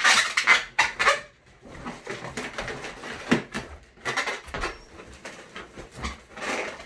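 Latex 260 modelling balloons squeaking and rubbing against one another in short, irregular squeaks as they are twisted and tucked together by hand.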